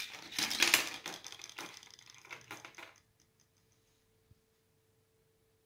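Tinplate cone moulds for pastry cornets clattering and clinking against each other and the fluted tartlet tins in a tray as one is picked out: a dense metallic rattle for about three seconds, loudest in the first second, then a few light clicks. A faint steady hum underneath.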